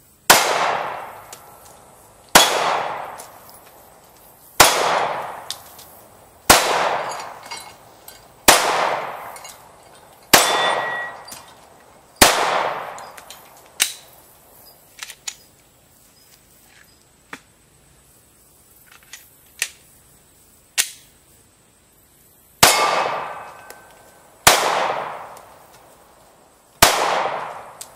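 Glock 19 Gen 4 9mm pistol firing single shots at a slow, steady pace, about two seconds apart, each crack followed by a long echo. Seven shots, a pause of about ten seconds filled by a few quieter sharp cracks, then three more shots near the end.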